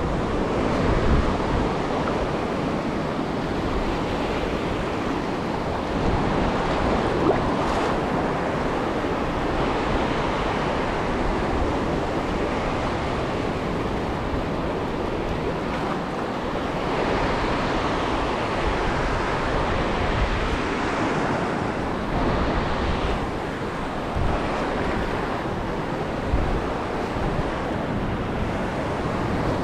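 Ocean surf: a steady wash of breaking waves that swells and eases, with wind buffeting the microphone.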